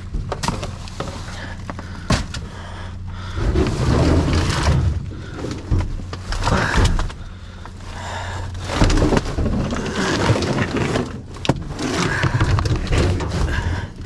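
Objects being shifted and dragged around inside a dumpster: irregular clattering, scraping and knocks, with a few sharp bangs, over a steady low hum.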